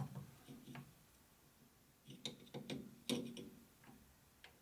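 Chuck key working the jaws of a lathe chuck: a few light, scattered metallic clicks and knocks as the jaws are snugged onto the part.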